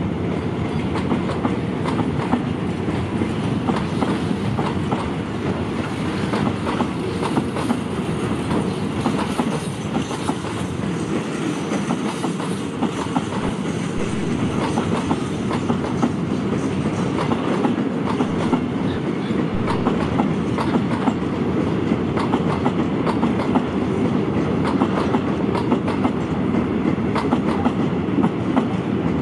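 Freight train of empty flatcars rolling past, a steady clatter of wheels over the rail joints.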